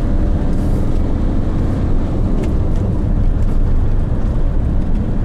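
Steady low rumble of a car's engine and tyres, heard inside the cabin while driving at road speed.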